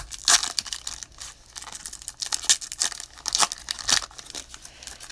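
The wrapper of a Mosaic basketball card pack being torn open and crinkled by hand: a run of irregular sharp crackles and rips.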